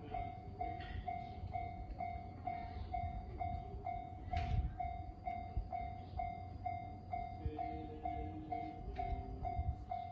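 Japanese level crossing warning bell ringing steadily at about three strikes a second while a train rumbles past, with one sharp knock about four and a half seconds in.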